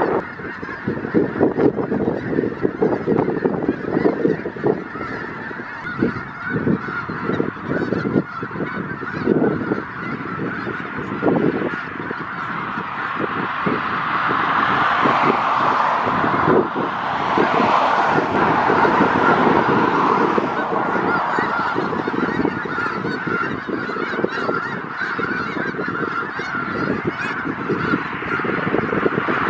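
A large flock of snow geese calling all at once: a dense, unbroken chorus of honking.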